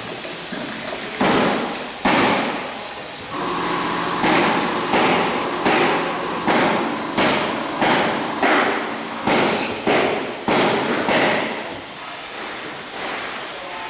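Filling machine running through its cycle: a sudden noisy burst about every two-thirds of a second, each fading quickly, over a steady hum. The bursts stop near the end.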